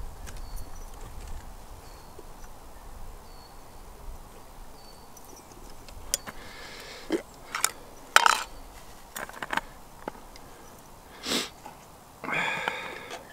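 Stainless steel camp pot with a cafetière plunger top being handled. The first half is quiet while the plunger is pressed slowly down. From about halfway there is a run of sharp metal clinks and taps, then a short rushing scrape near the end.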